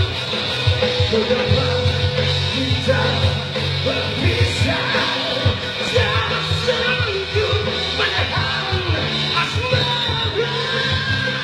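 Rock band music with sung vocals over a steady bass and drums, played continuously.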